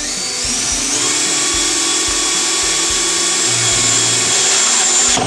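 Cordless drill running steadily at full speed, boring a bolt hole through the bottom of a plastic 55-gallon drum; its motor whine climbs in pitch in the first second, then holds until it stops abruptly near the end.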